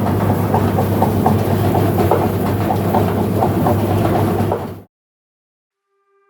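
Bucket elevator driven by a 1 HP electric motor through a V-belt, running with a steady low hum and a quick, even ticking clatter. The sound cuts off abruptly about three-quarters of the way through. A sustained music note fades in near the end.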